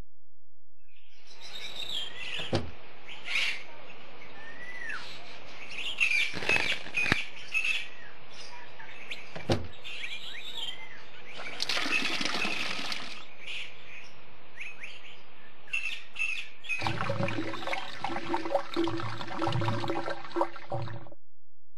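Birds chirping, with scattered sharp clicks and a short hiss about twelve seconds in. About seventeen seconds in, a denser, louder sound with steady low tones takes over.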